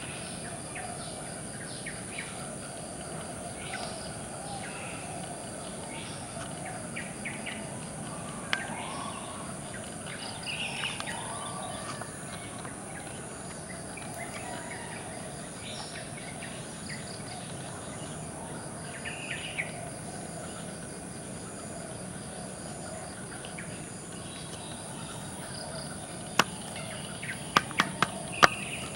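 Outdoor nature ambience: scattered bird calls over a steady, high insect buzz. A few sharp clicks sound near the end.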